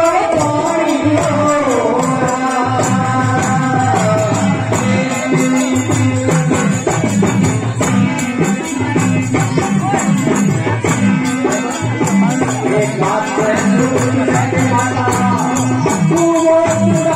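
Live devotional folk song: a male voice singing over accompanying instruments, with dancers clashing large metal hand cymbals in a steady rhythm throughout.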